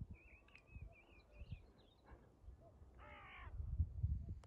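Faint birdsong outdoors: a thin, wavering high song in the first two seconds, then a single short harsh call about three seconds in, over low wind rumble on the microphone.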